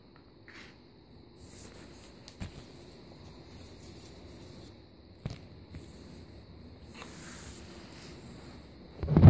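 Faint rustling and hiss of a phone camera being handled with its lens covered, with a few scattered clicks, then a loud bump near the end as it is moved.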